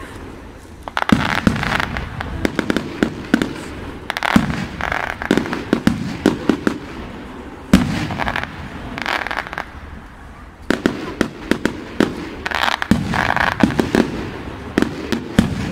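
Fireworks going off in repeated volleys: sharp bangs with bursts of crackling between them, coming in waves every few seconds. The loudest single bang comes about eight seconds in.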